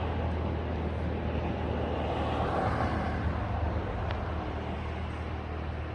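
Steady low engine drone heard from inside a car, swelling slightly about halfway through.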